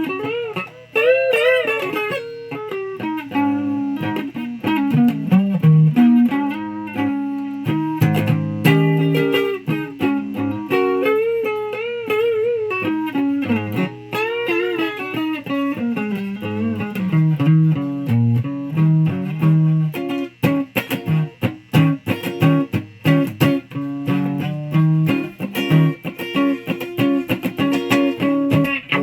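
Electric guitar playing single-note lead lines with string bends and vibrato, moving into fast picked runs in the second half.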